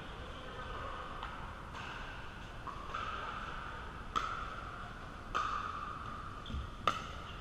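Sharp pops of pickleball paddles striking the hollow plastic ball during a rally: three clear hits roughly a second apart in the second half, the last the loudest. Fainter pops from play on neighbouring courts and the hall's steady reverberant hum sit behind them.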